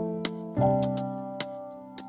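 Instrumental background music: held chords, with a new chord struck about half a second in, over a light ticking beat.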